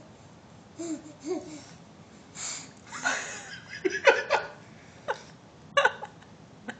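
Several short bursts of laughter with breathy vocal sounds, loudest a few seconds in.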